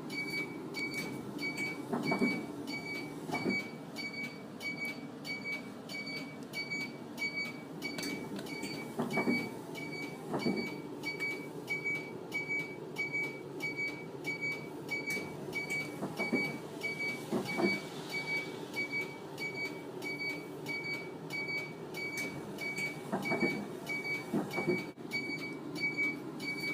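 Hino factory-fitted left-turn warning chime, a high electronic beep repeating steadily about twice a second. Under it is a low vehicle rumble with occasional knocks.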